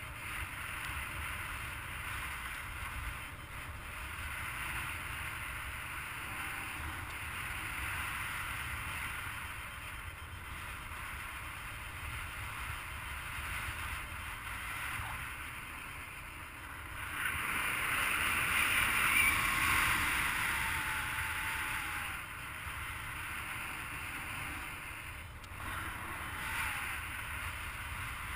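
Airflow rushing over the microphone of a camera on a paraglider in flight: a steady wind noise with a low rumble, swelling louder for several seconds past the middle and briefly again near the end.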